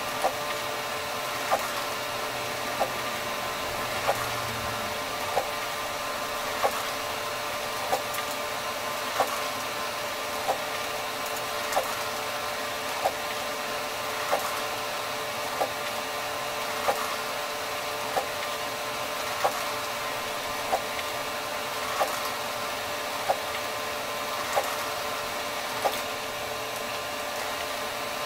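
ENCAD NovaJet 750 wide-format inkjet printer printing: a steady mechanical whine, with a sharp click about every 1.3 seconds.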